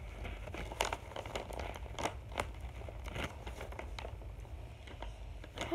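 Sheets of white paper from a taped-together paper mask crinkling and rustling as they are handled, in irregular sharp crackles.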